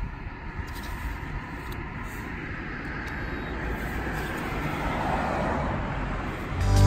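Street traffic noise, slowly swelling as a vehicle approaches and passes through the second half.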